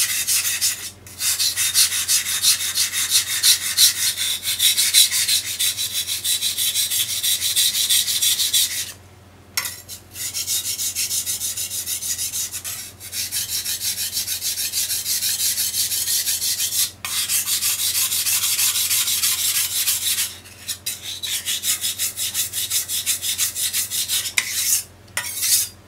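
A steel knife blade (a South American asado knife) stroked rapidly back and forth on a water-soaked whetstone during sharpening, making a wet grinding rasp. The strokes come in long runs broken by several short pauses.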